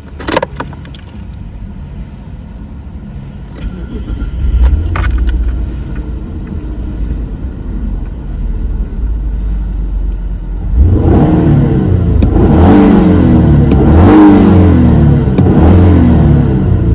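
Mitsubishi Diamante wagon's 3.0-litre V6 SOHC engine running, with a few clicks near the start. About eleven seconds in it grows much louder and rougher, a pulsing sound that carries on.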